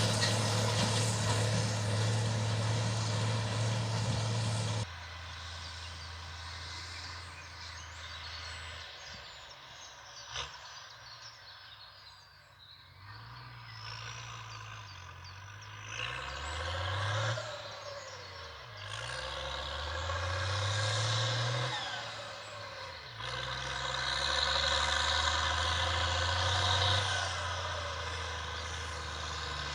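IHC 1246 tractor's diesel engine, modified to about 170 hp, running steadily. Its sound drops suddenly about five seconds in and fades low near the middle. The revs then climb several times before the engine runs loud and steady again near the end.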